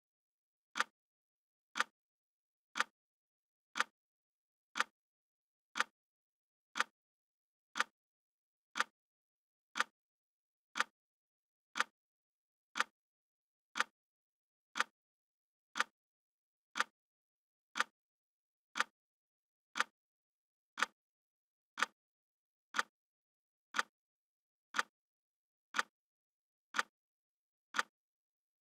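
Clock-style ticking sound effect of a countdown timer: short sharp ticks, one each second, with silence between them.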